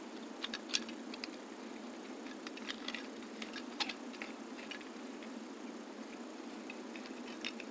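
A handful of light clicks and ticks as plastic camera-mount parts are handled and screwed onto a metal threaded part by hand, over a steady background hiss.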